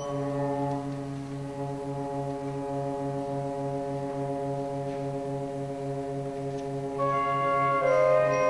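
Youth concert band opening a piece with a held brass chord over a steadily pulsing low note. Higher instruments join about seven seconds in and the music grows louder.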